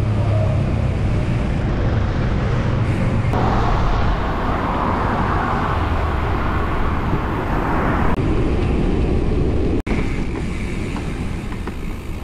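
Traffic and wind noise recorded from a moving bicycle on a road shoulder alongside cars: a steady heavy rumble with a hiss that gets louder for a few seconds in the middle. Near the end the sound breaks off suddenly and turns quieter.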